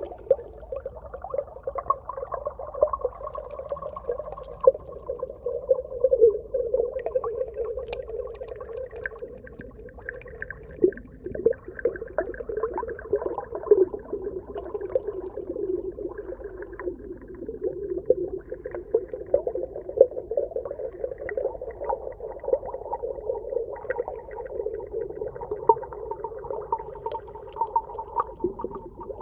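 Underwater sea ambience: a continuous wavering pitched drone, with many short clicks and crackles scattered through it.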